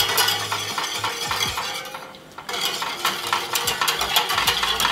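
Wire whisk rattling and scraping rapidly against the sides of a small stainless-steel saucepan of warming water as a sugar and pearl-agar mix is whisked in to keep it from clumping. There is a brief pause about two seconds in.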